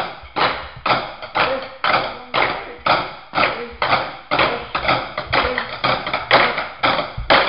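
Drumsticks striking a practice pad and plastic chairs in a steady beat, about two strikes a second, each a sharp hit that dies away quickly.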